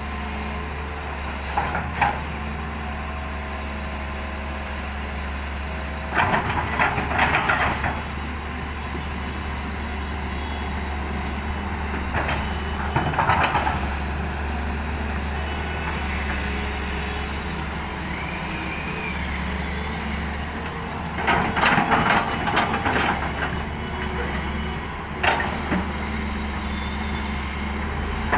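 SANY SY220C-9 hydraulic excavator's diesel engine running steadily under work, with three bursts of clatter several seconds apart and a single sharp knock near the end.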